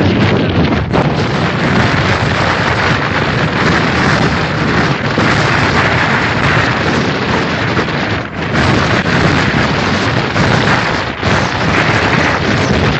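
Extreme wind blasting straight into the microphone: a loud, continuous rush of buffeting noise that eases only briefly twice, about eight and eleven seconds in.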